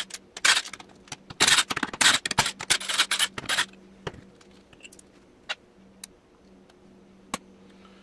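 Milwaukee Fuel cordless impact driver hammering in several loud bursts as it backs out the tight bolts of a transmission's band servo cover, followed by a few single light metallic clicks of the loose bolts being handled.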